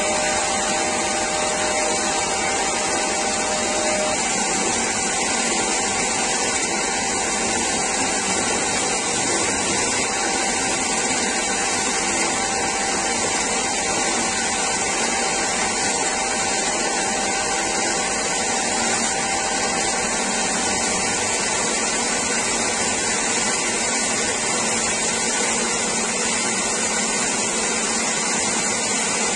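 Parkside PBTS 370 B2 belt and disc sander running steadily on its 370 W induction motor, with a piece of wood held against the sanding belt at its end roller to round it off.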